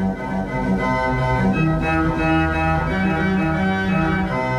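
Two-manual church pipe organ playing a short passage of held chords, with deep bass notes from the pedal keyboard under the manual chords, which change a few times.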